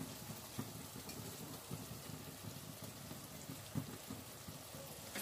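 Onions, ginger, garlic and green chilies frying in oil in a heavy-bottomed kadai: a faint, steady sizzle, with a few light knocks of the wooden spatula against the pan.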